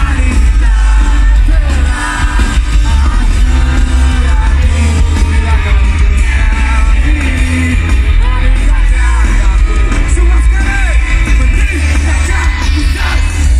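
Live rock band playing loudly with singing over it and a heavy, steady bass.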